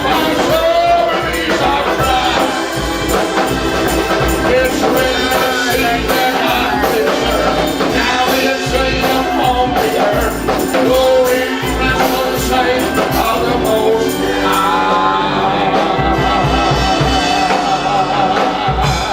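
Gospel worship music played live: singers over a band with percussion, steady throughout.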